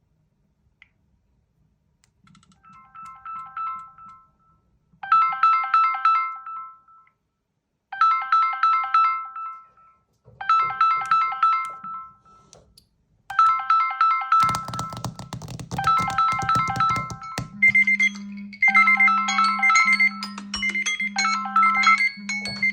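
Smartphone incoming-call ringtones. A short synthesized melody repeats about every three seconds, growing louder over its first few repeats. About two-thirds of the way through, a low buzz joins, and then a second, higher ringtone with a steady low hum overlaps the first.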